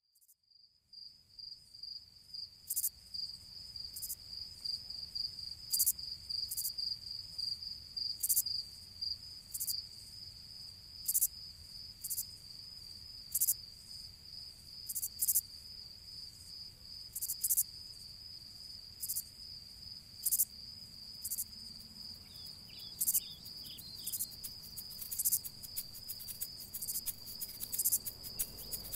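A continuous high insect trill, like a cricket chorus, fading in about a second in. Short sharp high ticks come at irregular intervals and grow more frequent toward the end, with a few brief lower chirps a little past the middle.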